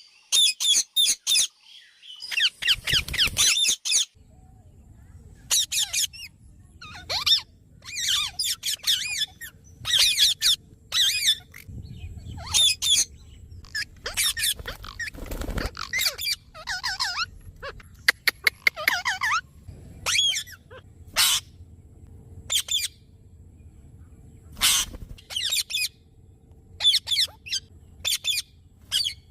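Alexandrine parakeets calling: short, harsh squawks and wavering chatter in quick bouts, over and over, with brief pauses between bouts.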